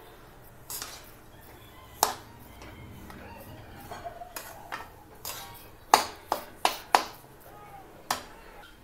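Flat metal spatula stirring coarse semolina roasting in ghee in a steel kadhai. About ten sharp clinks of metal on the pan, four loud ones in quick succession a little past the middle.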